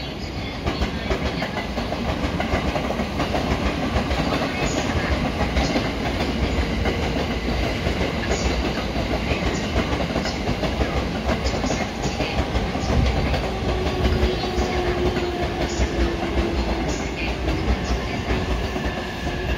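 A JR East commuter electric multiple unit in green-and-orange stripes rolling past, its wheels clicking over rail joints and points over a steady rumble. In the second half a faint motor whine falls slowly in pitch.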